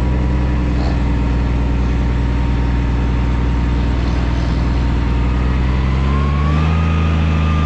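Heavy truck engine running steadily, then speeding up to a higher, steady speed about six and a half seconds in.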